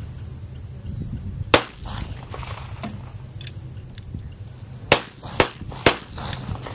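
Colt M1911 .45 pistol firing blank rounds: one sharp shot about a second and a half in, then three more shots about half a second apart near the end.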